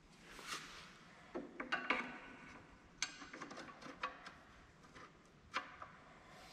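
Light metallic clinks and knocks as steel pieces are handled against a steel-framed cart: a short cluster of clattering with brief ringing about a second and a half in, then a few scattered single clicks.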